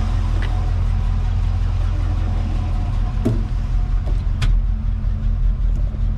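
Chevy 305 small-block V8 idling steadily after a bent pushrod was replaced, running smoothly and firing on all cylinders. Two sharp clicks come through about three and four and a half seconds in.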